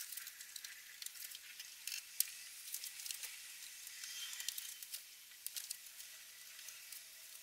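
Faint scattered clicks and rustling from a large TV being handled and turned on its monitor arm, with one sharper click about two seconds in.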